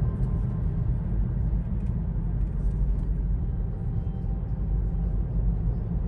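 Steady low rumble of road and tyre noise heard inside a car's cabin while driving on a highway.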